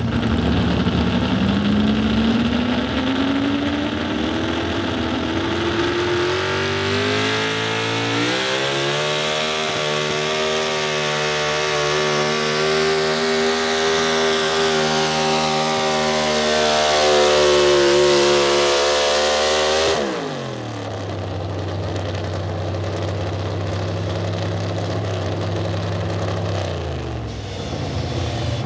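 Pro Stock 4x4 pickup's carbureted big-block V8 at full throttle pulling a weight-transfer sled: the revs climb steadily for about eight seconds and hold high. About two-thirds through the throttle is cut and the engine drops suddenly to idle, settling lower near the end.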